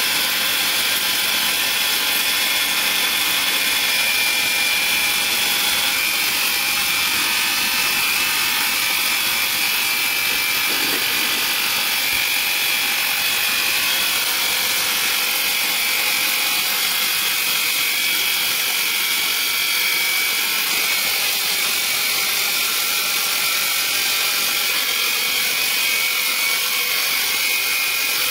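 Xenon HPW2160 cordless pressure washer running steadily with a high whine, its water jet hissing on wet floor tiles as it sprays off moss.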